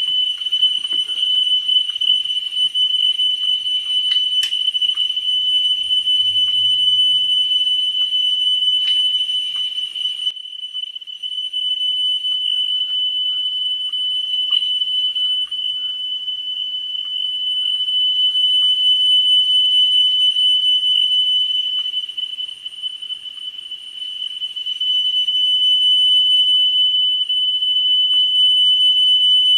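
A steady 3 kHz test tone played back from tape on a Pioneer CT-W205R cassette deck. Its loudness dips and recovers several times as the playback head's azimuth screw is turned; the tone is at its brightest when the head is aligned. Faint clicks from the adjusting tool.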